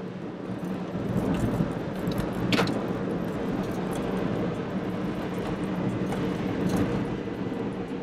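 Vehicle engine running steadily under road and wind noise while descending a winding mountain road, with a single sharp click about two and a half seconds in.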